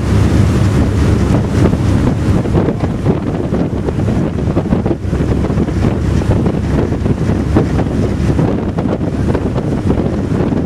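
Strong wind buffeting the microphone on the open deck of a fast ferry under way, over the rush of water from the boat's wake.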